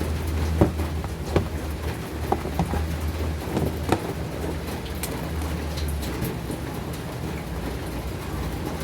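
Steady hiss of rain with a low hum underneath, and a few light clicks in the first four seconds.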